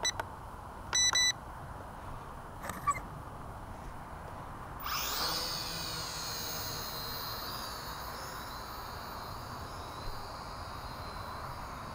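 A short electronic beep about a second in; then, about five seconds in, the Syma X5C-1 quadcopter's four small coreless brushed motors spin up with a quickly rising whine and keep running steadily as it lifts off and hovers.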